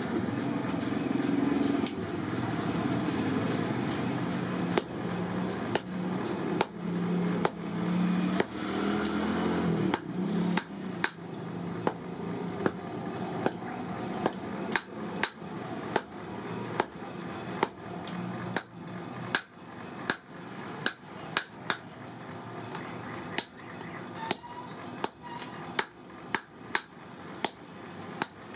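Hammer blows on steel against an anvil, a little over one strike a second, with a high metallic ring after many of them: hand forging of leaf-spring steel. A steady low hum runs under the first few seconds and fades out.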